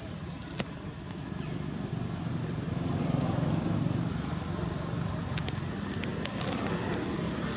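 Low rumble of a motor vehicle engine, growing louder about two seconds in and then holding steady, with a few faint clicks.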